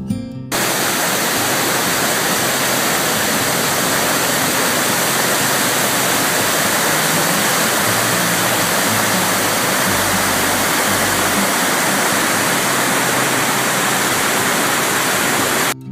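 Creek waterfall in flood after heavy rain: a steady, loud rush of falling water.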